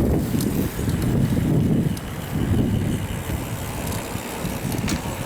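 Low, gusting rumble of wind buffeting the microphone, swelling and fading every second or so.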